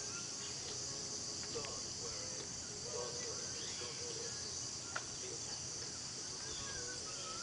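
Steady, high-pitched chorus of insects, unbroken throughout, with a single faint tick about five seconds in.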